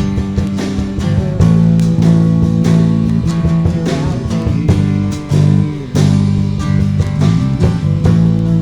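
A live band playing an instrumental passage: guitar over bass and drums, with regular drum hits.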